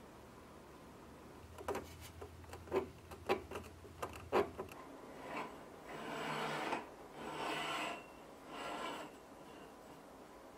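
Handling noise from fitting a DRAW A LINE ball lamp onto a floor-to-ceiling tension rod: a quick run of about eight sharp clicks and light knocks, then three or four rubbing, scraping passes of the fitting against the pole.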